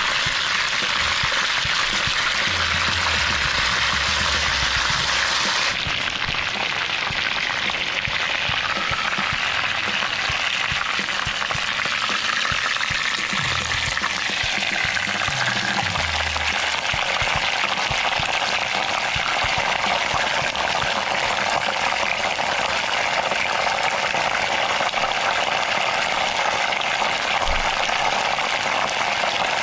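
A sauce-glazed whole chicken sizzling steadily in a little hot oil in a nonstick wok.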